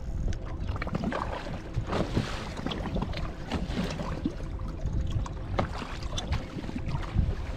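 Wind buffeting the microphone and water lapping against a bass boat's hull, with scattered short clicks, knocks and splashes throughout.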